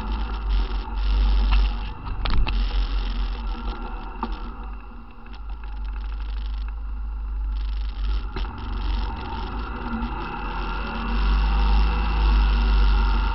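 ATV engine running while riding, with wind buffeting the microphone and a few knocks from bumps early on. It quietens for a few seconds in the middle, then grows louder again near the end.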